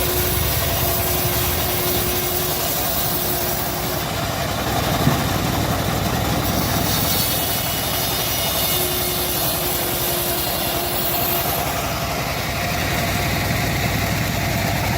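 Homemade band sawmill running steadily, with a faint tone that comes and goes and a single sharp knock about five seconds in.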